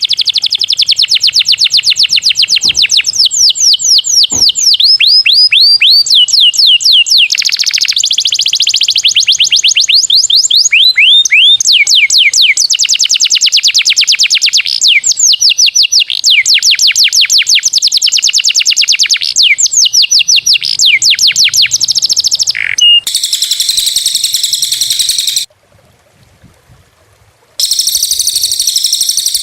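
Small songbird song from a masteran training recording: long runs of rapid, sharp, high descending notes, several a second. Near the end it changes to a denser high warble, breaks off for about two seconds, then resumes.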